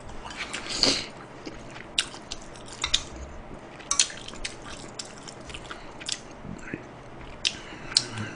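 A man eating makguksu noodles close to the microphone: chewing with wet mouth smacks and clicks, sharp and irregular, about one a second.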